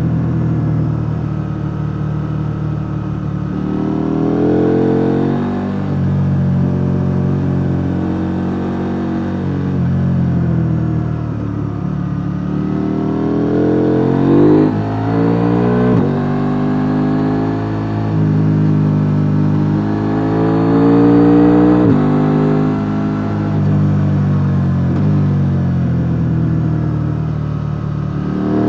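KTM 890 Duke R's parallel-twin engine on its stock exhaust, heard on board under way: the revs climb several times and drop sharply between climbs, as the rider accelerates, shifts and rolls off between curves.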